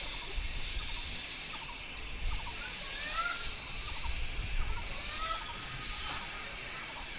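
Red-billed blue magpies calling: a run of short, rising, squeaky calls, busiest in the middle stretch, over a steady high hiss.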